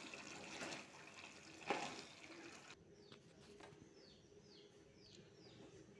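A ladle stirs the thick kala chana curry in a steel pot, with one sharp knock about two seconds in. After that it goes quieter, and a bird chirps several times in the background with short falling notes.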